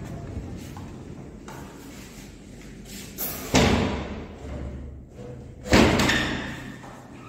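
Two loud thuds about two seconds apart, each echoing on in a bare, empty room.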